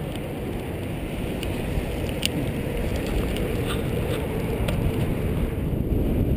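Wind buffeting and rolling rumble from a moving recumbent trike, picked up by a GoPro microphone damped with cotton batting stuffed into its case, with a few light clicks.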